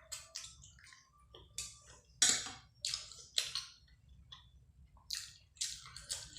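Close-miked wet chewing and lip-smacking of a person eating curry and rice: irregular short smacks, the loudest about two seconds in.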